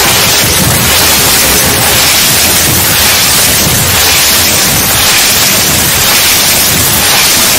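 Loud, harsh static-like hiss filling all pitches, swelling slightly about once a second.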